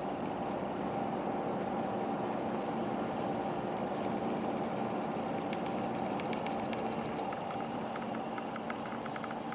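EVGA 750 BQ 750 W power supply's cooling fan running steadily under full load: an even whirring hum with a few steady tones in it. A scattering of faint light ticks comes in during the second half.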